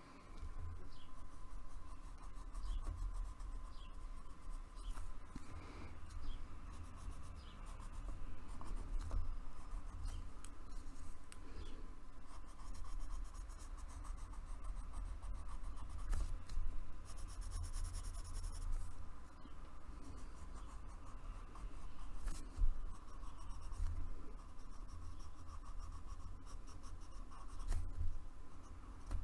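A pencil scratching on paper as outline lines are drawn in many short and longer strokes, over a low rumble.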